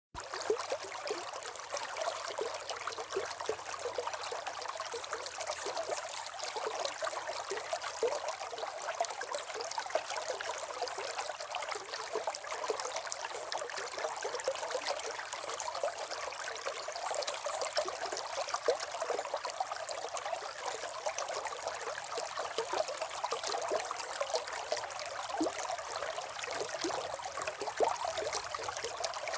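River water running and babbling steadily over stones, with a constant gurgling and trickling wash.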